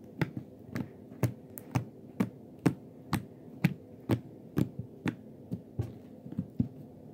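Fingers poking slime over and over, giving short soft squishy pops about twice a second.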